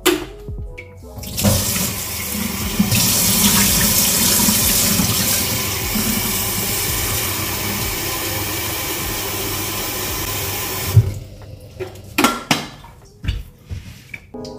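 A kitchen tap runs into a stainless steel electric kettle, filling it with a steady rushing hiss for about nine seconds. The flow stops with a sharp click, then a few short knocks follow as the kettle is handled and set down.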